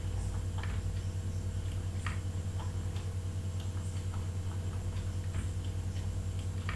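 Computer mouse clicking at an irregular pace, a few soft clicks a second, over a steady low hum.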